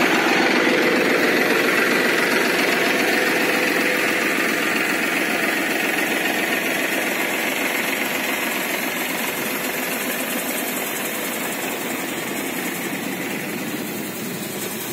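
Tractor-driven paddy thresher (paddy cleaner) running with the tractor engine, a steady dense mechanical din that gradually gets quieter.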